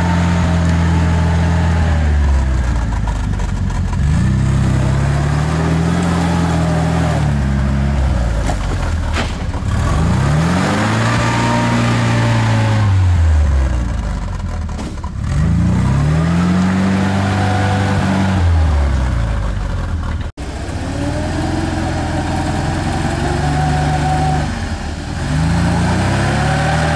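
Off-road 4x4's engine revving up and falling back again and again, about five surges a few seconds apart, as its wheels spin in deep mud trying to climb out of a rut.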